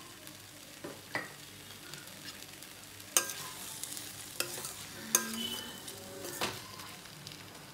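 Metal spoon stirring chopped okra, onion and tomato in a stainless steel kadai over a faint steady sizzle of frying. The spoon clinks sharply against the pan about four times in the second half, one clink ringing briefly.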